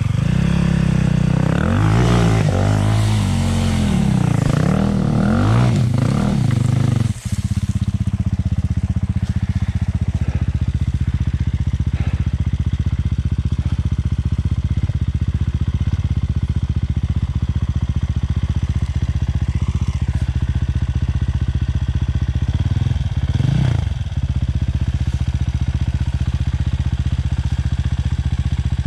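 Enduro dirt bike engine revving unevenly for about the first seven seconds, then dropping suddenly to a steady idle. A short blip of the throttle comes a few seconds before the end.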